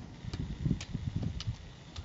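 Walking on a rough trail: sharp clicks about twice a second in a walking rhythm, over low, uneven thuds.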